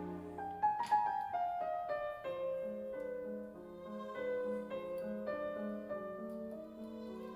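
Background music with piano and strings playing a slow melody.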